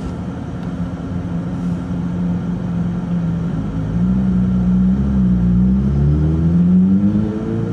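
A car engine running while the car is moving, its pitch drifting up and down with speed, louder from about four seconds in.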